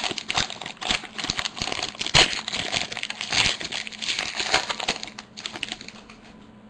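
Hockey card pack wrapper crinkling and tearing as it is torn open, with sharp crackles and the cards being handled. The crackling is loudest about two seconds in and quiets toward the end.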